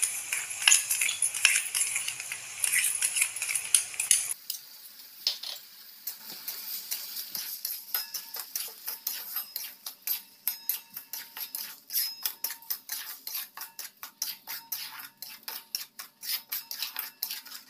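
A spatula scraping and knocking against a metal kadhai as beetroot paste and sugar are stirred, in quick strokes at about three a second. For the first four seconds there is a hiss with a few knocks as the sugar is tipped into the hot paste.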